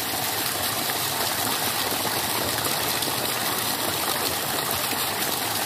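Steady gush of water pouring out of a wide black pipe and splashing onto wet, muddy ground.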